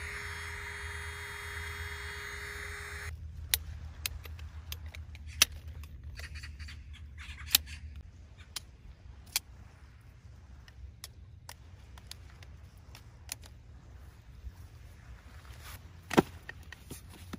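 A small motor whining steadily, which cuts off abruptly about three seconds in. Scattered sharp clicks and knocks follow, the loudest about a second before the end.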